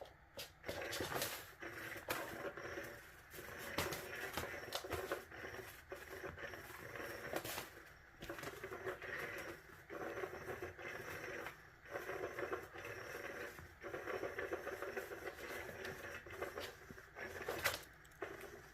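Kitten playing with its toys: irregular rustling and clattering, with many sharp clicks and knocks.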